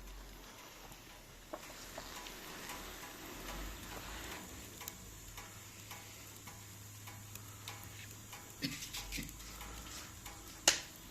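Scattered light clicks and taps over a faint hiss, with a sharper click near the end.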